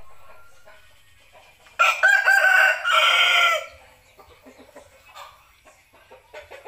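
Rooster crowing once, starting about two seconds in and lasting about two seconds, with a brief break partway through.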